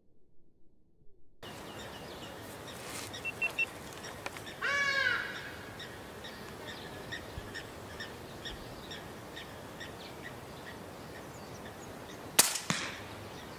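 A .22 Daystate Alpha Wolf PCP air rifle with a moderator fires a single shot near the end: one sharp report, the loudest sound here. Before it, a bird gives a loud harsh call about five seconds in, over outdoor background with faint repeated chirping.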